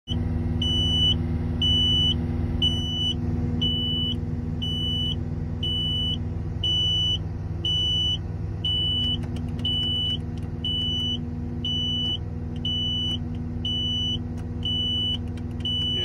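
Takeuchi TL12 skid steer's cab warning alarm beeping steadily about once a second, each beep about half a second long, over the diesel engine running. The alarm is signalling an emissions fault that the machine needs a dealer to clear.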